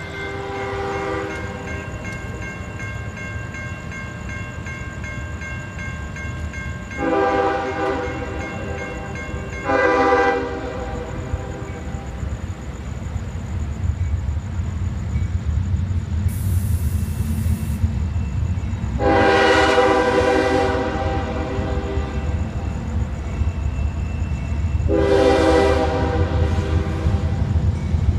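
An approaching diesel train's air horn, sounding several tones at once, blows a long blast and a short one close together. After a pause it blows two more long blasts, and it starts again at the very end. A low rumble from the train grows underneath.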